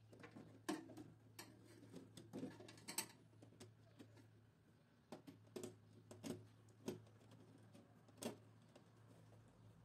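Faint, irregular clicks and taps of a small screwdriver and wire ends being worked into DIN-rail terminal blocks, over a low steady hum.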